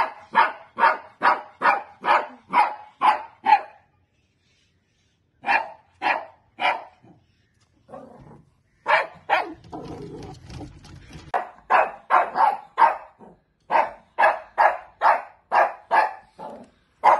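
Shih Tzu barking at monkeys in quick runs of short, sharp barks, about two a second, with a pause of over a second a few seconds in. A low rumble sits under the barks for about two seconds in the middle.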